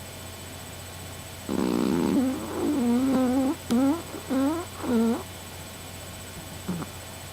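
Small Yorkshire terrier snoring in her sleep: a rough snore, then a longer wavering, pitched snore and three short ones in quick succession, with a faint last snort near the end.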